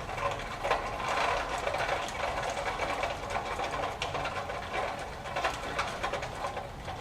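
Small irregular clicks and rustling from hands working at a sewing machine's needle and thread guides while the needle is threaded; the machine is not running at a steady stitching rhythm.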